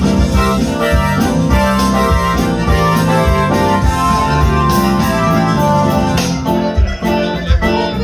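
Live band playing dance music, with accordion and keyboard tones held over drums and electric guitar and a steady beat.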